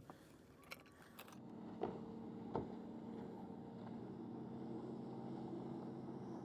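Boat engine running at a steady pitch, setting in about a second and a half in, with two light knocks shortly after.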